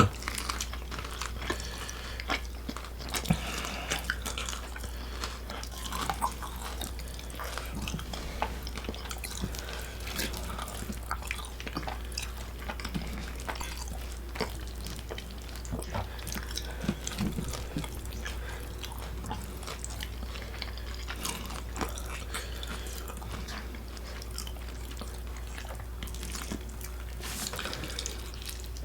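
Close-miked eating: chewing with wet, sticky smacks and many small scattered clicks of mouth and utensils, over a steady low hum.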